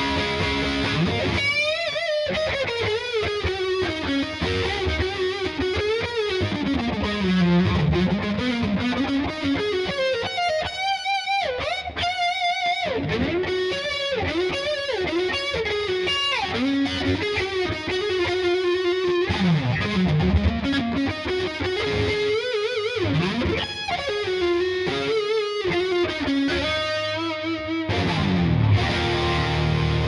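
Gibson Les Paul Tribute '70s electric guitar with humbucking pickups, played with distortion on both pickups together: fast lead lines with string bends and vibrato on held notes. Thicker chords ring near the end.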